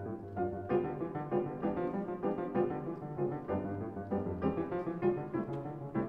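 Background music: piano playing a steady run of notes.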